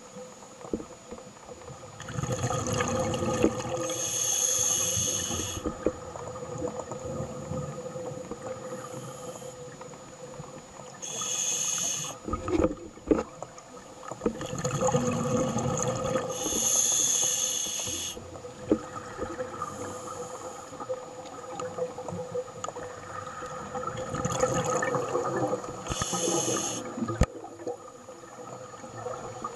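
Scuba diver breathing through a regulator underwater: a hissing inhale through the demand valve alternates with a rush of exhaled bubbles, over several breath cycles, with a faint steady hum underneath.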